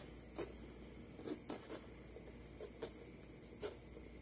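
Kitchen knife cutting around the stem of a raw green bell pepper: faint, irregular crisp cracks and snaps as the blade is worked through the firm flesh.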